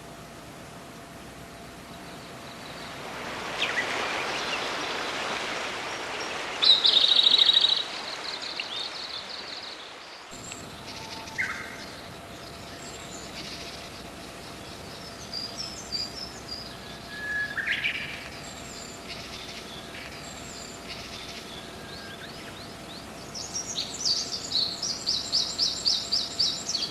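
Small songbirds singing and calling: a loud, fast, high trill about seven seconds in, scattered short chirps and whistles through the middle, and a long run of rapid high notes near the end. A rushing hiss swells up under the first part and dies away after about ten seconds.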